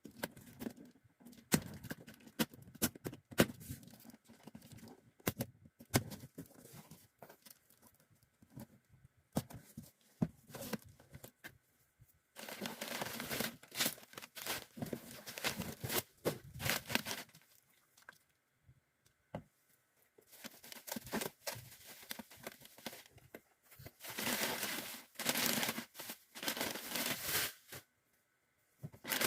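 Packaging being handled for coffee parcels: crinkling and rustling with many short clicks, and three longer stretches of tearing, the first about halfway through and two more near the end.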